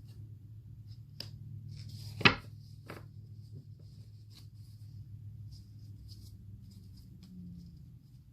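Tarot cards being handled on a table: soft rubbing and light ticks, with one sharp tap a little over two seconds in, over a steady low hum.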